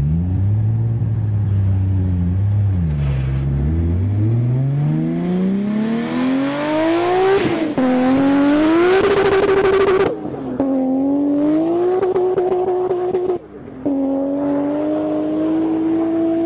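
Toyota Supra MK4's 2JZ straight-six engine accelerating hard from a launch. The revs are held low for the first few seconds, then climb in long rising sweeps. Three gear changes, each a sudden drop in pitch, come about halfway through, a few seconds later and near the end. The sound is loudest while the car passes close in the middle.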